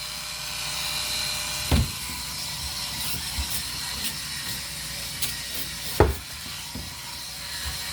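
Small electric scrub brush running and scrubbing, a steady whirring hiss, with two sharp knocks, one about two seconds in and one about six seconds in.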